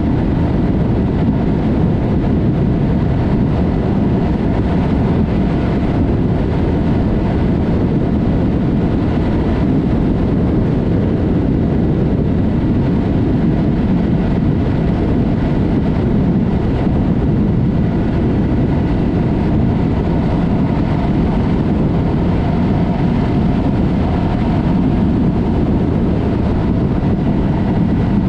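Yamaha MT-03 parallel-twin motorcycle with a Mivv exhaust riding at a steady pace: engine and exhaust running evenly under heavy wind rush on the helmet or bike-mounted microphone.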